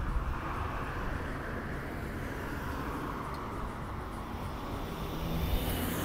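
Road traffic: a steady noise of car engines and tyres on the street, swelling as a vehicle passes close by near the end.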